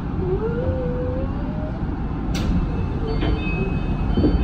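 Tama Toshi Monorail train heard from the cab: a steady low rumble with a motor whine that rises in pitch over the first second or two. About two seconds in comes a sharp click, then a few steady high tones near the end.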